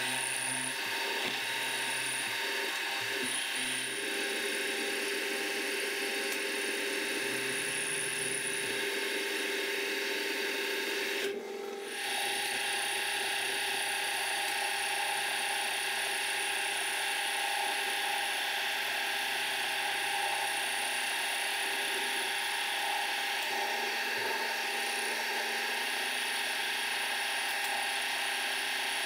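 Milling machine spindle and gear drive running steadily while a twist drill bores into a metal block under flood coolant. The sound drops out briefly about 11 seconds in, then carries on.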